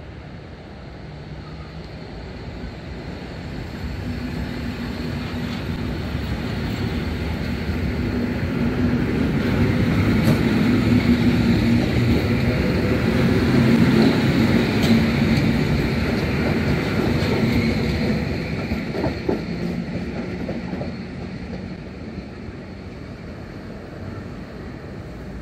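PKP EN57 electric multiple unit pulling out of the station and passing close by. Its traction motors hum and its wheels run on the rails, growing louder to a peak about halfway through, then fading as it draws away. There are a few wheel knocks over the rail joints late on.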